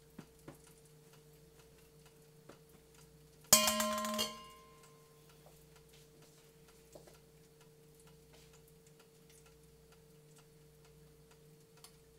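Covered electric deep fryer frying food: faint scattered ticks and pops from the hot oil over a steady low hum. About three and a half seconds in, a single sudden loud metallic clink rings briefly.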